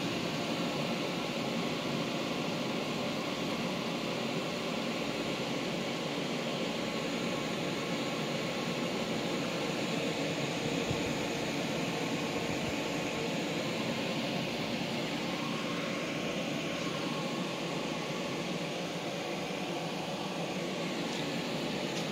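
A steady, even rushing hiss that holds at one level throughout, with no breaks.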